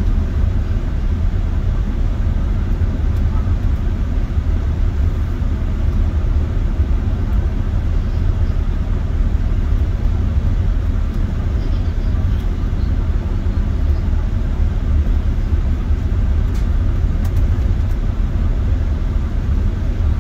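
City bus under way, heard from inside the passenger cabin: a steady low rumble of engine and road noise.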